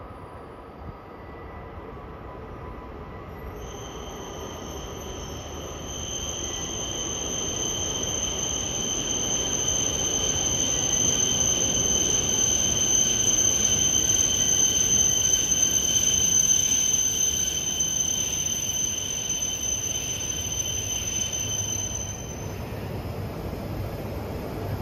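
Tohoku Shinkansen train pulling in to the platform and braking, with a steady high-pitched two-tone squeal from its brakes and wheels. The squeal starts a few seconds in and stops a couple of seconds before the end, over the rush of the train, which grows loudest about halfway through and then eases off.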